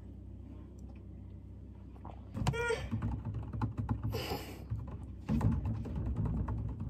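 Low thumps and knocks from handling and movement, starting about two seconds in. Among them is a short voiced 'ah' from a woman, followed a moment later by a breathy exhale, just after she drinks from a plastic water bottle.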